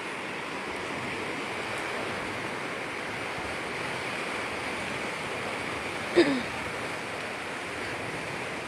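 Steady rushing of a fast-flowing, flooded river. About six seconds in there is one short, sharp sound that drops in pitch.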